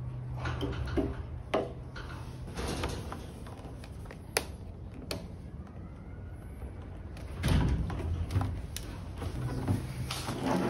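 A motorcycle fuel tank being worked loose and lifted off the frame by gloved hands: scattered sharp clicks and clunks of the tank against the frame and fittings, with a louder knock and rumble about two-thirds of the way through.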